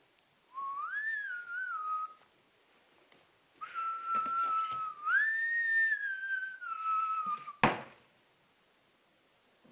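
A person whistling two phrases of a tune, a short one and then a longer one, the pitch gliding up and down between notes. A single sharp thud comes near the end.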